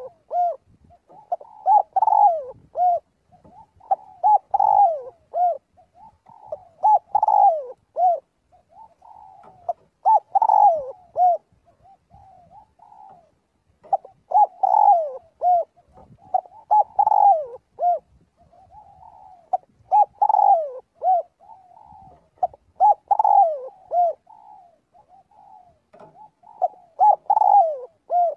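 Spotted dove cooing: a short phrase of a few soft notes, repeated over and over about every two to three seconds.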